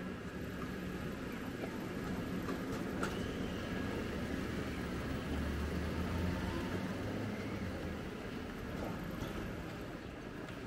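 Street traffic: a motor vehicle's engine running close by, swelling louder around the middle and easing off near the end.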